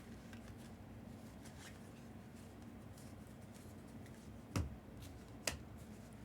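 Quiet handling of trading cards as they are flipped through, with faint ticks and two sharp clicks about a second apart near the end, over a faint steady hum.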